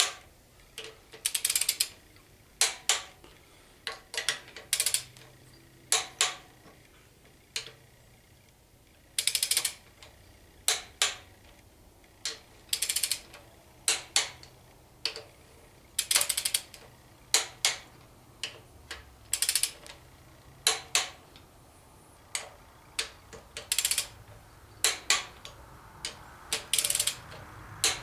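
Click-type torque wrench ratcheting in short bursts of clicks, again and again, as cylinder head bolts are tightened to 30 ft-lb, the first step of a three-step torque sequence.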